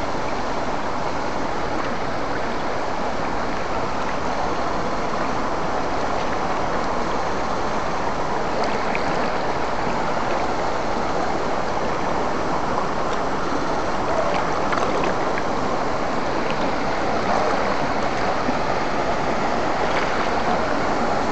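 Fast, shallow stream rushing over rocks, a steady rush of water.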